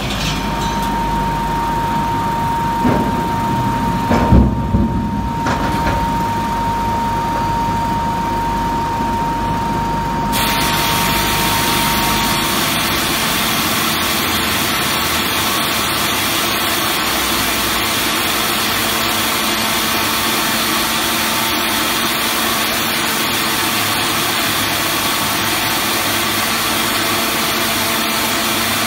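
Wood-log debarker and log-feeding conveyor machinery running: a steady motor hum with a whine and a few knocks. About ten seconds in, this changes suddenly to a steadier, hissier machine noise with a low hum.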